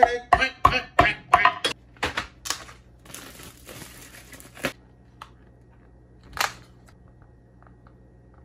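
A quick run of short, sharp clicks and pops, about three a second, for the first couple of seconds. Then plastic wrapping on a cardboard advent calendar crinkles for about a second and a half, with one more brief rustle later.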